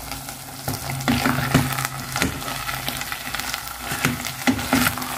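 Chicken fried rice being reheated in a non-stick pot, stirred and scraped with a plastic spatula in irregular strokes several times a second, with a light sizzle underneath.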